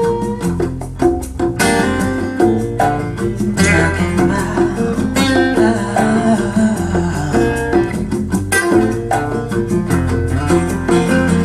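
Instrumental blues-rock passage with plucked guitar notes over bass, played back from a vinyl record on a Dohmann Helix 1 turntable.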